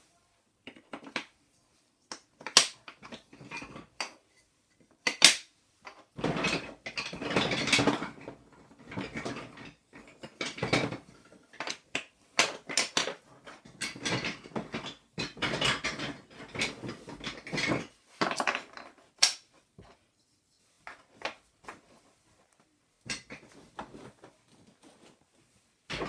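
Toy train track pieces being handled and fitted together: irregular clattering and clicking of hard pieces, with short pauses and a few sharper knocks.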